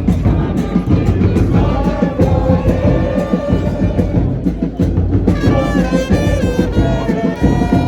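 Loud music with a busy drum beat and singing voices, the voices coming up strongly about five seconds in.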